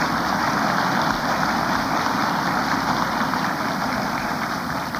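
A crowd applauding, a steady wash of clapping, heard on an old archival speech recording.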